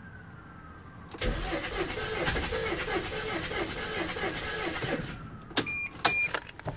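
Mercedes Sprinter diesel engine spun over by the starter for about four seconds without firing, with an even beat of about three a second. The cam sensor is unplugged and the glow plugs are out, so cranking blows debris out of the glow plug holes. Two short electronic beeps follow near the end.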